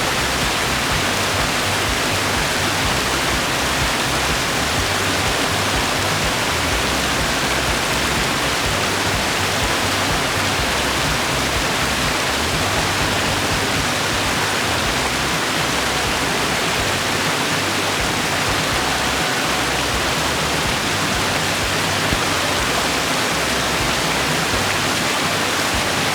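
Waterfall pouring into a swimming hole: a steady, loud rush of falling water that does not change.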